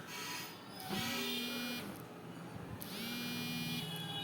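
An electronic beeping tone that repeats about every two seconds. Each beep lasts under a second and starts with a short downward slide in pitch.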